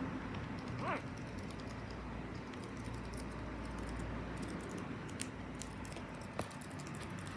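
A budgerigar gives one short, faint chirp about a second in. Otherwise only scattered faint small clicks and ticks over a steady quiet hiss.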